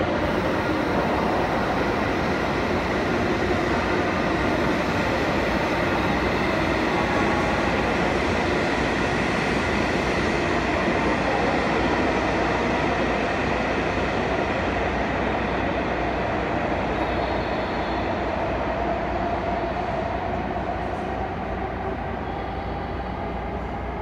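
Freight train of tank-container wagons on the track beside the platform, making steady rail noise with faint whining tones, easing off slightly near the end.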